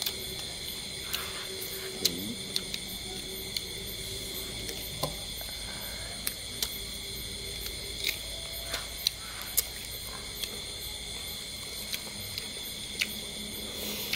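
Steady high chorus of night insects, with scattered sharp clicks and smacks from people eating grilled duck by hand.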